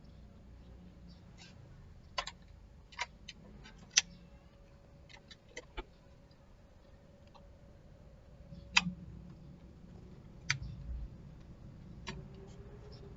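Irregular sharp clicks and light knocks of small parts and tools being handled, about a dozen, the loudest about 4 and 9 seconds in, over a faint steady hum.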